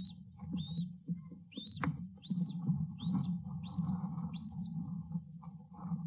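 About seven thin, high, arching cheeps from American kestrels in the nest box, roughly one every 0.7 s, that stop near the end. Underneath runs a steady low rustling and shuffling in the nest straw as the female feeds the newly hatched chick.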